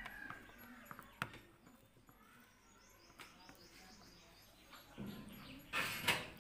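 Faint background bird chirping, with a light click about a second in and a short burst of hiss near the end.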